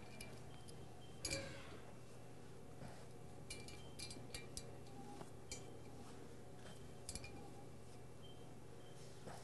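Faint, scattered metallic clicks and clinks from a socket ratchet turning the bolts on the hub of a pump's cast-iron pulley, tightening them down; the loudest click comes about a second in, with small clusters a little later.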